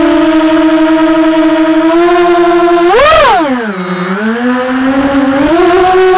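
EMAX RS2206 2300KV brushless motors spinning a multirotor drone's propellers, heard on board as a steady electric whine. About three seconds in, the pitch rises sharply as the throttle is punched, then falls away low about a second later and climbs back to a steady whine.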